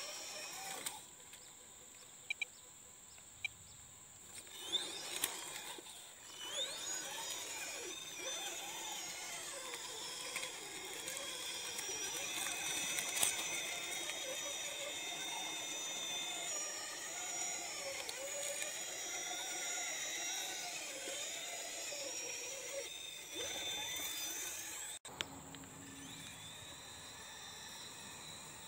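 Electric RC rock crawler's motor and gear train whining, the pitch rising and falling with the throttle as it climbs rock. It goes quieter for a few seconds near the start, with a few sharp clicks, then drops off abruptly near the end.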